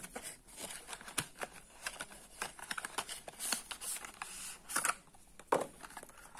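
Cardboard retail box of Xiaomi Redmi AirDots earbuds being opened by hand: the printed sleeve sliding off the inner box with scattered paper rustles, scrapes and light clicks.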